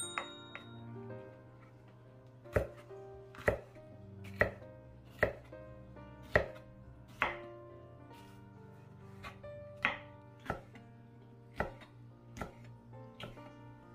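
Chef's knife slicing bell peppers into strips on a wooden cutting board, each cut ending in a sharp knock of the blade on the board, roughly one a second.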